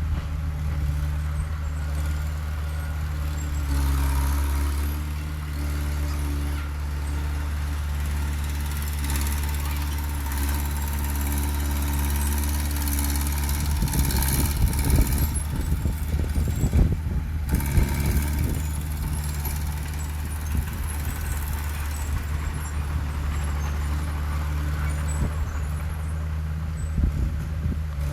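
Heavy diesel engine of earthmoving machinery running steadily, with a stretch of irregular clanks and knocks about halfway through and a few more near the end.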